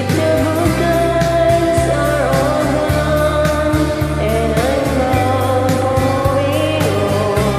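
Karaoke singing over a country-folk backing track: a voice holding long, wavering notes over bass, guitar and a steady drum beat.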